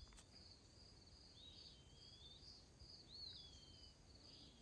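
Near silence with faint bird calls: two high whistled calls, each sliding up and then trailing down, about a second and a half apart, over a faint repeating insect chirp.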